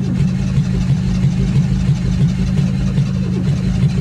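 Starter motor cranking a cold Ford Torino engine in a cold start, a steady rhythmic churning about three times a second, without the engine catching. The long cranking is wearing the battery down.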